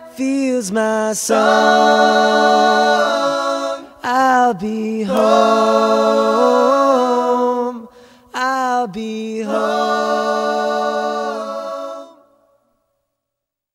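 Soundtrack music: unaccompanied voices singing held notes in harmony, in several phrases with short breaks. It fades to silence near the end.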